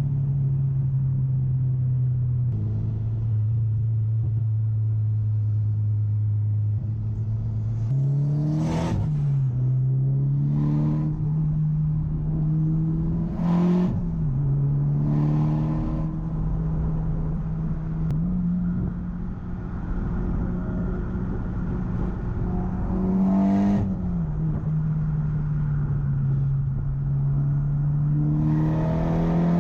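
Mitsubishi Lancer Evolution X's turbocharged 2.0-litre 4B11T four-cylinder engine under way. It holds a steady note for long stretches, then rises and drops in pitch through several gear changes. Brief bursts of noise come about four times.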